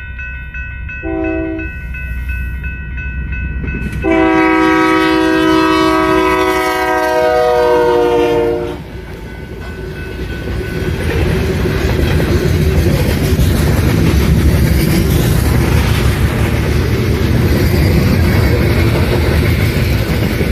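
Union Pacific diesel locomotive's air horn sounding a chord for a grade crossing: the tail of one blast, a short blast about a second in, then a long blast whose pitch drops near its end as the locomotive passes. After that the coal train's hopper cars roll by with a steady rumble and clickety-clack of wheels on the rails.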